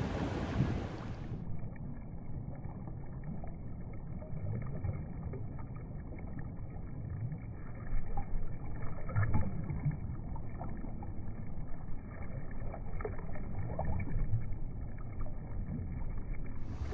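Small waves lapping and washing over wet sand at the water's edge, muffled, with scattered light fizzing ticks and a stronger wash about eight seconds in. The first second and a half is wind on the microphone and distant surf before the sound cuts to the lapping.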